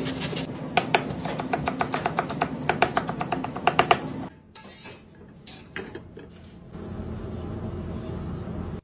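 Chef's knife chopping fast on a plastic cutting board, about five quick knocks a second, over music. It stops suddenly about four seconds in. A few light clicks follow, then a steady low rush near the end.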